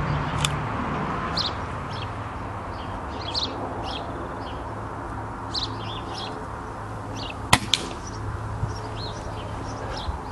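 A single air-gun shot from a .177 Brocock Contour about three quarters of the way in: a sharp crack, then a moment later a second, weaker tick as the pellet strikes the target and knocks the hanging CD off. Small birds chirp throughout.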